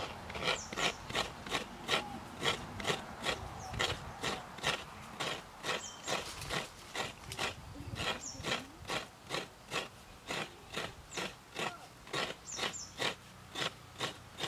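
Halved coconut being grated by hand, its flesh rasped against a scraper in a steady run of short strokes, about two or three a second.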